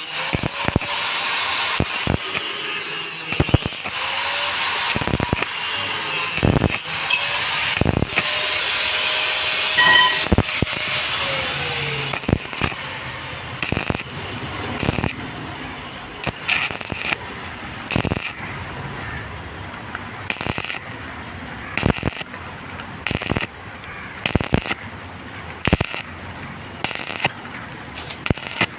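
Electric arc welding on a steel pipe: the arc crackles and hisses loudly and steadily, then from about twelve seconds in it turns quieter with short crackling bursts roughly once a second.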